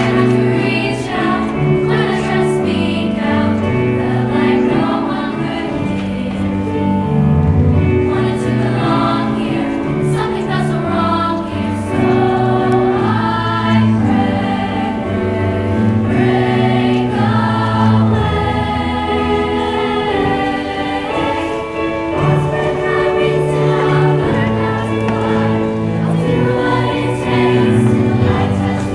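A choir singing, several voices holding chords that change every second or two.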